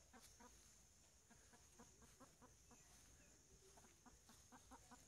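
Faint clucking of hens in short runs of quick clucks, the flock stirred up by a young armadillo among them.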